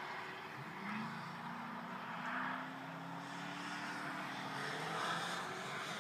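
Dodge Charger police car accelerating along the track, its engine note rising about a second in and then held steady for a few seconds.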